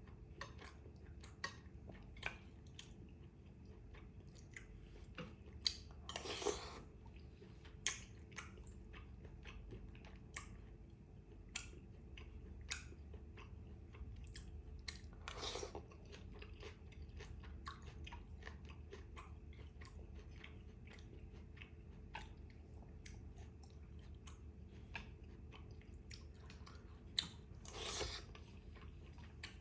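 Close-up mouth sounds of a person eating bún trộn bò (beef and rice-vermicelli salad): steady chewing with many small wet clicks and some crunch. There are three longer, noisier sounds at about 6, 15 and 28 seconds in.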